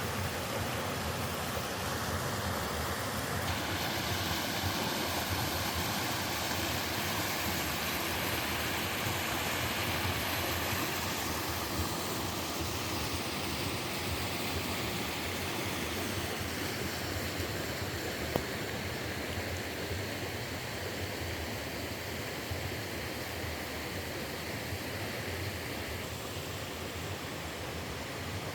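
Mountain stream rushing steadily over rocks, its tone shifting a few times.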